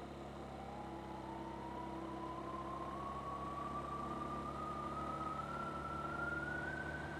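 2005 Yamaha Vino 125 scooter riding and gathering speed, picked up by a helmet mic: a whistle rises steadily in pitch over a running engine, and the sound grows slowly louder.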